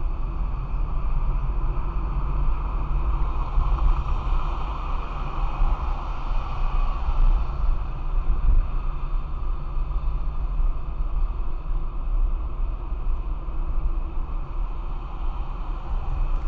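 Steady road noise of a car being driven, heard from inside the cabin: a low rumble of engine and tyres on the road, even throughout.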